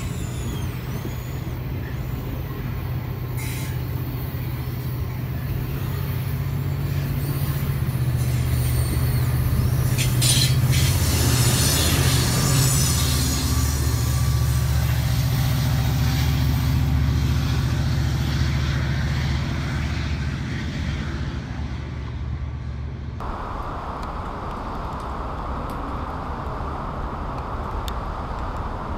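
Amtrak Cascades Talgo trainset rolling past, followed by its EMD F59PHI diesel locomotive with the engine's low hum building as it goes by. About 23 seconds in the train sound cuts off abruptly, replaced by a steady hiss.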